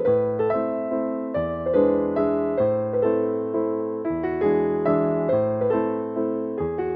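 Background piano music: a gentle electric-piano melody over steady chords.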